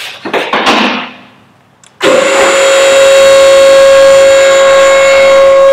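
A two-post vehicle hoist's electric hydraulic pump motor switches on about two seconds in and runs with a loud, steady whine, raising the hoist under load. Before that there are a few brief knocks and some rustling.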